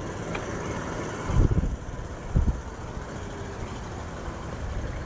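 Wind rumbling on the microphone of a chest-mounted action camera on a moving bicycle, a steady low rumble with stronger gusts about one and a half and two and a half seconds in.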